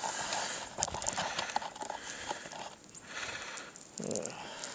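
Footsteps crunching through deep snow: an irregular run of crisp crunches over a steady hiss of wind on the microphone.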